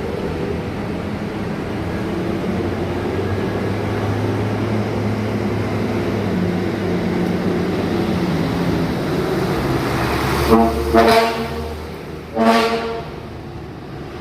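Bus diesel engine running steadily, then the horn sounds three short blasts near the end, two close together and a third about a second later.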